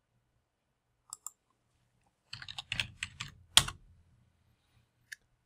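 Computer keyboard typing a short search word: a quick run of light keystrokes starting about two seconds in, with one sharper key near the end of the run. Two faint ticks come before it and a single tick comes near the end.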